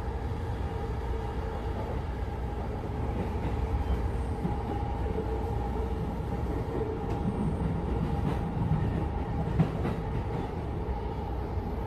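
Commuter train running, heard from inside the passenger car: a steady low rumble with a constant hum over it, and one brief sharp knock about ten seconds in.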